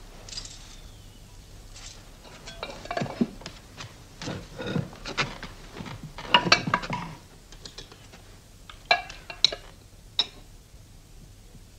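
Ladle and spoon clinking against china plates and a soup tureen as soup is served at a table, in irregular clinks and knocks that are busiest in the middle, with a few sharp clinks near the end.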